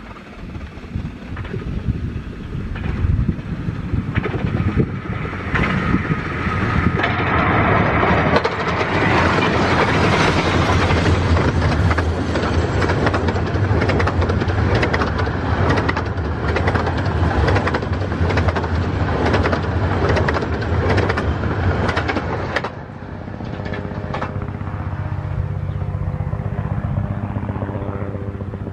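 A 15-inch gauge miniature steam train passing at speed. The sound builds over several seconds to a loud run of rapid, regular clicks from the wheels and rail joints, then drops off suddenly about three-quarters of the way through as the train moves away.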